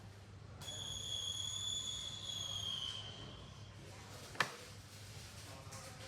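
A high-pitched steady whistle-like tone lasting about two seconds and dipping slightly in pitch as it ends, then a single sharp click, over a faint low hum.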